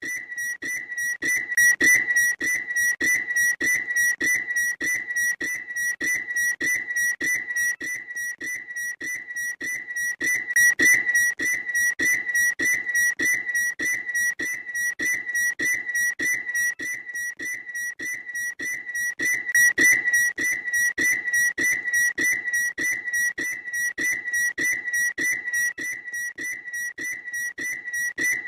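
Bird call: a high-pitched note at one steady pitch, repeated rapidly several times a second, with louder swells about every nine seconds.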